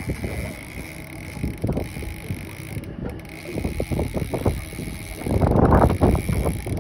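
Boat motor running steadily under wind noise on the microphone, with irregular knocks and a louder rush of noise for about a second, some five seconds in.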